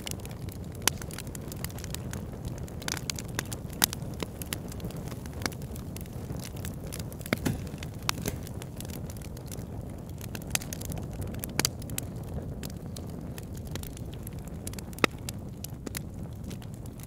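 Wood fire crackling in a fireplace: a steady low rumble of the flames with irregular sharp pops and snaps, several of them standing out clearly.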